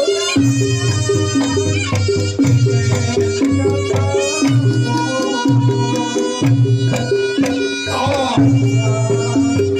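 Reog Ponorogo music: a reedy melody with many overtones over kendang drum strokes and a repeating low pattern of pitched gong notes, with a short gliding sound about eight seconds in.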